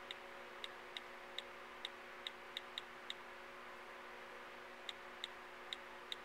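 Key clicks of an iOS on-screen keyboard as login details are typed: a string of short, sharp taps at an uneven pace, with a pause of nearly two seconds about halfway. A faint steady hum runs underneath.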